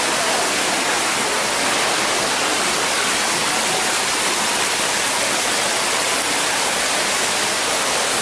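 Indoor man-made stream tumbling over rocks: a steady, even rush of flowing water.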